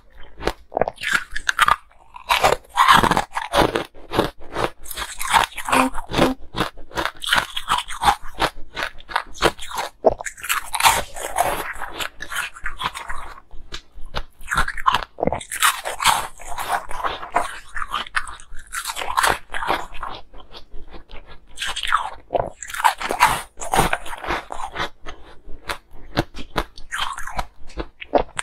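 Colored ice cubes being bitten and chewed: dense, crackly crunching in repeated bursts, one mouthful after another.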